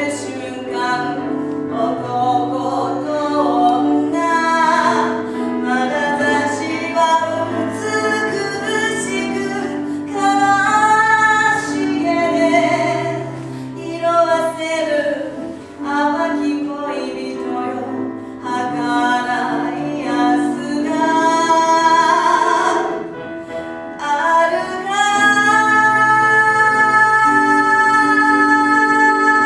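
A woman singing to Casio Privia digital piano accompaniment, her voice moving through a melodic line and then holding one long note over the last few seconds.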